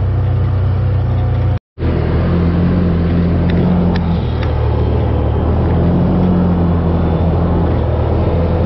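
UTV engine running steadily under way on a dirt trail, heard from inside the open cab, its pitch rising for a couple of stretches. The sound cuts out completely for a moment just under two seconds in.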